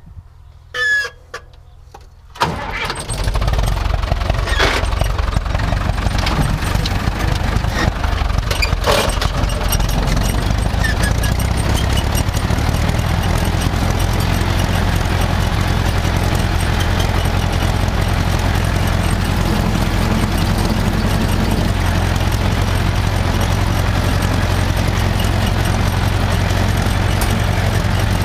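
Tractor engine opened up sharply about two and a half seconds in, then running steadily and loudly under load as the tractor drives off in third gear.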